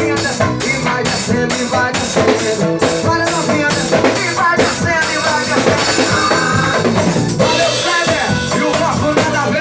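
Loud carnival band music: a drum kit keeps a steady beat under a gliding melodic line.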